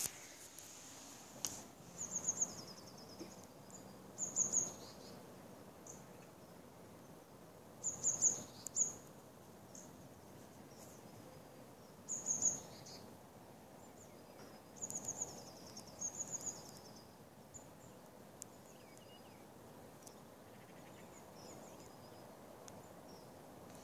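A small bird singing short, high-pitched phrases of quick repeated notes every few seconds, over a faint steady background hum.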